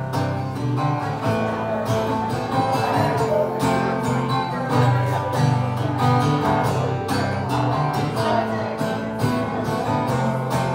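Acoustic guitars strumming chords together in a steady rhythm, playing a song's instrumental introduction.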